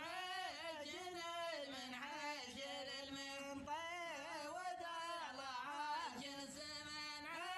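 A solo voice singing a slow melody with long, wavering, ornamented phrases.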